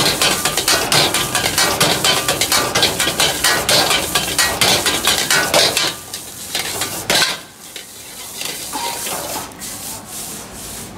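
Metal ladle rapidly and rhythmically striking and scraping a steel wok while fried rice is stir-fried over a gas flame, with sizzling underneath. The clatter stops about six seconds in, leaving quieter sizzling and the odd knock.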